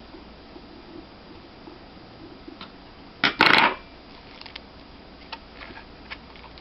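Small hard parts being handled on a work surface: light clicks and taps, with one short clatter about three seconds in, as a laptop hard drive in its caddy and the screwdriver are moved and set down.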